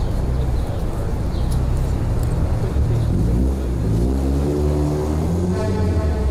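Motor vehicle engine running, with its pitch rising over the second half.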